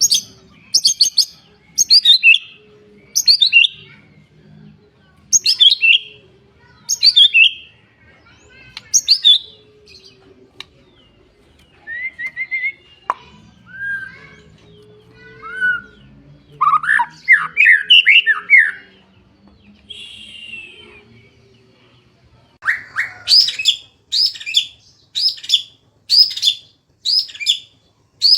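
Songbird calling: loud, sharp, high notes that sweep downward, repeated about once a second, then a lower, varied warbling phrase in the middle, then a quicker run of sharp notes near the end.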